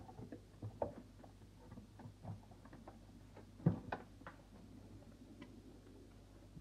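Puppy chewing and pawing at a cardboard shoebox: faint, irregular small clicks and taps on the cardboard, with one louder knock a little before four seconds in.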